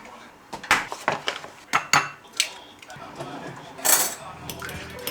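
Dishes and cutlery being handled: a string of sharp clinks and knocks at irregular intervals, with a brief scraping sound about four seconds in.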